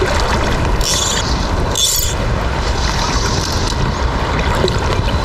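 Steady rushing wind buffeting the microphone, with brief hissing swishes about one and two seconds in.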